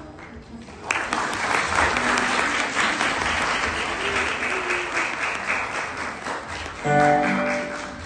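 Audience applauding, starting suddenly about a second in and fading near the end. As it dies away, a keyboard starts playing steady notes.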